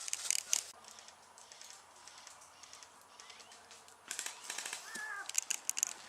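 Airsoft guns firing in rapid full-auto bursts, heard as strings of sharp clicking shots: one burst at the start and another from about four seconds in.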